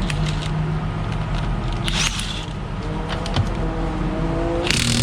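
Race car engines running on the track, their drone rising in pitch as they accelerate. Short rasping noises come about two seconds in and again near the end.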